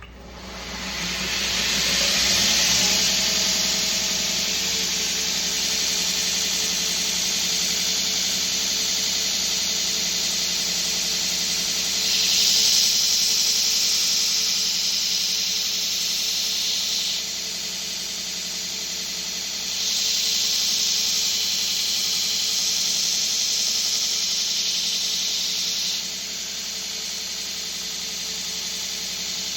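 Knife-making belt grinder with a 60-grit belt, speeding up over the first couple of seconds and then running steadily with a loud hiss. Twice, for about five seconds each, the hiss grows louder and brighter: steel held against the abrasive belt while the blade's bevels are ground in.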